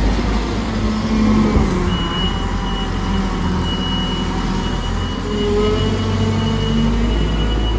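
Liebherr T60-9S telehandler's diesel engine running under load as the bucket digs into a grain heap and curls up. A thin, steady high whine joins about two seconds in.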